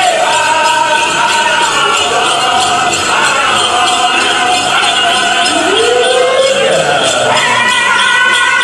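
Powwow drum group playing a chicken dance song, the singers' high-pitched voices over the drum, with the dancers' bells jingling.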